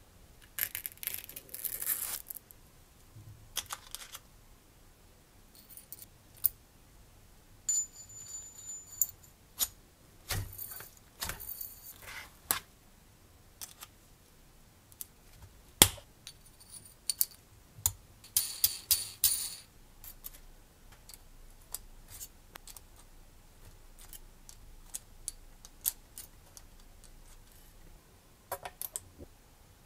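Small metal parts of a model radial engine kit being handled: scattered light clicks, clinks and short rattles of aluminium parts and miniature ball bearings being picked up with tweezers and set down. A brief high ring sounds about eight seconds in.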